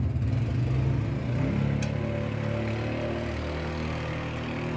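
A steady low mechanical hum, like a running engine or motor, whose pitch shifts slightly about a second and a half in. A single faint click comes about two seconds in.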